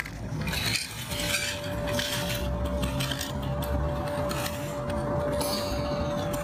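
Small stones and hard plastic toy parts clinking and scraping as toy construction vehicles are handled on concrete. A thin steady tone comes in about a second in.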